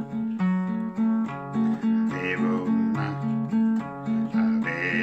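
An acoustic guitar is played in a steady rhythm, with bass notes alternating under the chords. A man's singing voice comes in about two seconds in.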